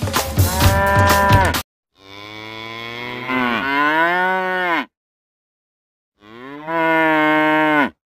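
Drum-backed music cuts off abruptly near the start, then a cow moos twice: two long calls of about three and under two seconds, each dropping in pitch as it ends.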